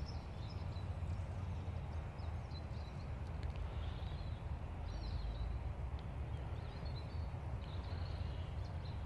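Outdoor ambience: a steady low rumble on the microphone, with faint, scattered bird chirps now and then.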